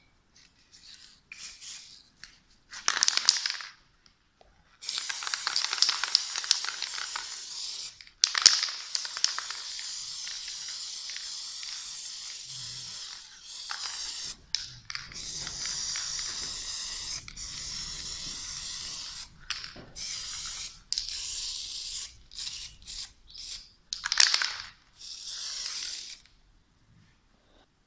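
Aerosol spray-paint can spraying: a short blast, then a long hiss of about nine seconds, then a string of short bursts of spray.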